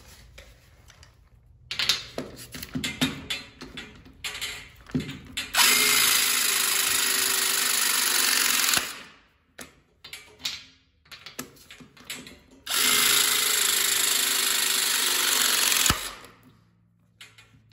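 Electric pipe-press tool pressing two copper press fittings, one after the other. Each press is a steady motor run of about three seconds; the second ends with a sharp click. Clicks and knocks come between the presses as the jaw is set round each fitting.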